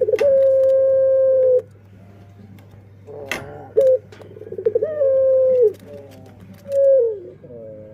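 Puter pelung dove cooing: a long steady coo held for about a second and a half, then a short note, another long coo that drops in pitch at its end, and a short falling coo near the end. A brief sharp noise sounds about three seconds in, over a low steady hum.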